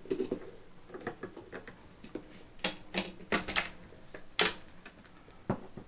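Ruger BX-25 25-round plastic magazine clicking and knocking against the Ruger American rimfire rifle's magazine well as it is worked into place: a string of irregular sharp clicks and knocks, the loudest a little past the middle.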